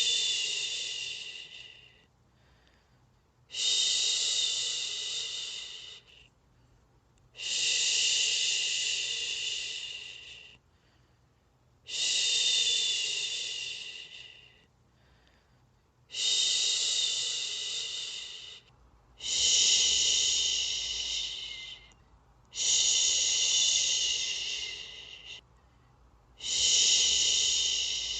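A person shushing a baby to sleep with long, steady 'shhh' sounds, repeated about every four seconds. Each shush is loudest at its start and fades over two to three seconds, with a short pause for breath before the next.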